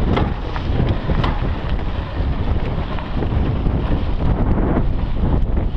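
Wind rushing over the microphone of a rider-mounted camera on a mountain bike moving along a stony dirt trail, with scattered small clicks and rattles from the bike over the rough ground.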